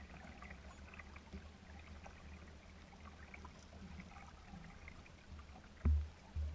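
Small waves lapping and trickling against a kayak's hull, with many faint drips and ticks over a steady low rumble. Near the end come two short low thumps.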